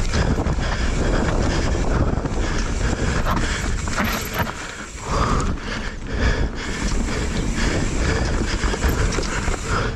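Mountain bike descending a rocky dirt trail: tyres rolling over dirt, roots and rock, with frequent knocks and rattles from the bike over the bumps and a steady low rumble.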